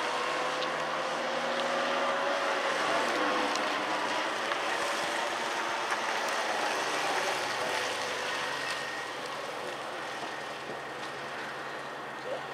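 Classic Mini's A-series four-cylinder engine revving up and down as the car manoeuvres on wet tarmac, with tyres hissing through surface water. It grows fainter over the last few seconds as the car drives away.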